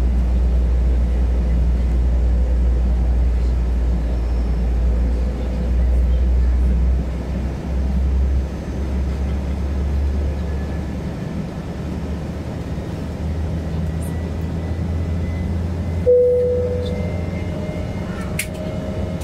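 Cabin noise of an Embraer E190 climbing out, from a window seat: a steady low rumble of the CF34 turbofans and airflow, which drops somewhat in level about a third of the way through. Near the end a single cabin chime sounds and fades.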